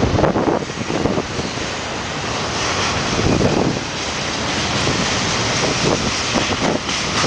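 Freight train of double-stack container well cars and tank cars rolling past, its wheels running on the rails, with heavy wind buffeting the microphone in gusts.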